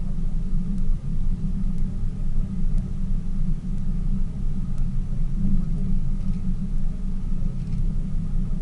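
Tour boat's engine running steadily under way: a constant low drone.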